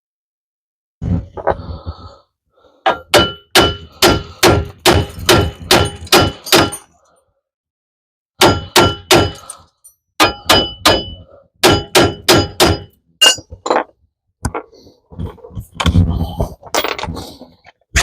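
Hammer striking steel, a long run of sharp ringing metal blows at about two a second in several bursts with short pauses between.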